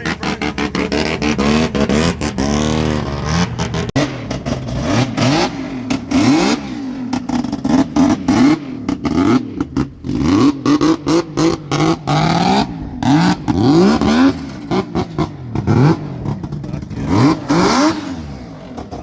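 Car engine revved hard again and again, its pitch climbing and dropping with each rev, cut through by many sharp cracks.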